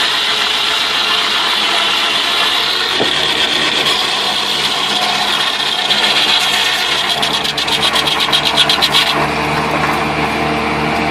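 Engine-driven sawmill machinery running steadily while cutting wood, with a fast rattling stretch that breaks off about nine seconds in, after which the machine runs on at a lower, steadier pitch.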